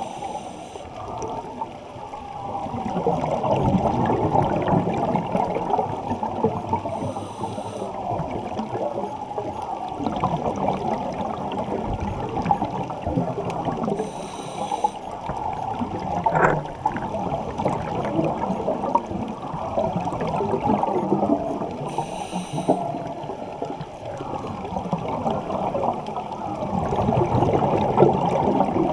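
Underwater sound through a camera's waterproof housing: a muffled, crackling rush of water and bubbling that swells and fades, with brief faint hisses every seven seconds or so.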